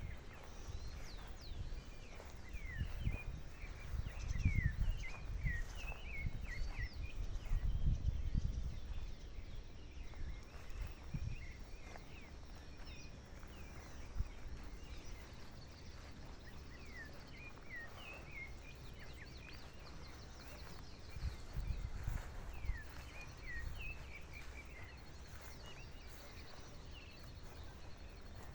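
Many small birds chirping together at dusk, a dense chorus of short, quick chirps, with bursts of low rumble underneath during the first several seconds and again about three quarters of the way through.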